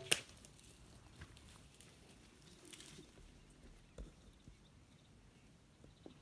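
A sharp smack right at the start, just after the bow shot, then a javelina scrambling off through dry grass: faint scattered rustles and patter, with a soft knock about four seconds in.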